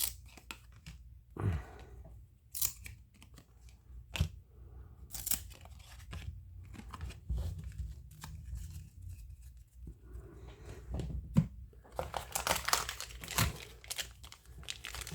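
Scattered light clicks and rustles of trading cards being handled and flipped, then, about three-quarters of the way in, a baseball card pack wrapper being torn open and crinkled.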